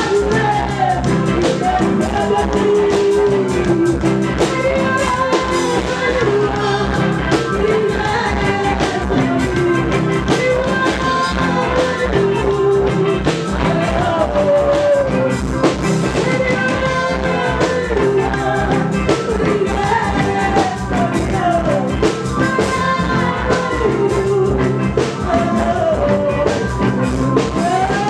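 A live reggae band playing, with a singer's melody over a steady drum beat and bass.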